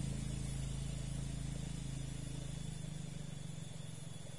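A vehicle engine running at a steady low pitch, slowly fading away.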